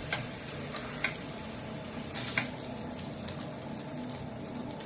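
Water spraying from a running filtered shower head, a steady hiss, with a few sharp ticks, the loudest about two and a half seconds in.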